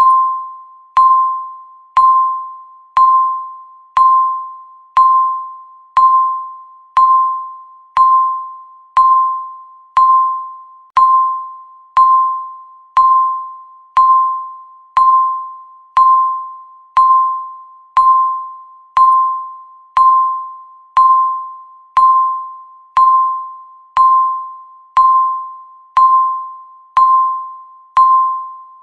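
Countdown timer beep: a single electronic tone sounding once every second, each one starting sharply and fading away before the next, marking off the seconds of the countdown.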